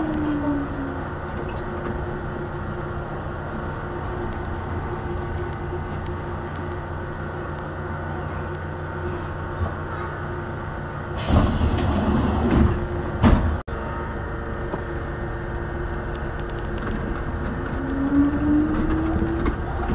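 Yamaman Yukarigaoka Line people-mover train running on its elevated track, heard from inside the cab: steady running noise, with a motor whine falling in pitch at the start and rising again near the end. About eleven seconds in there is a louder, rougher stretch lasting a couple of seconds, which ends in a brief cut-out of the sound.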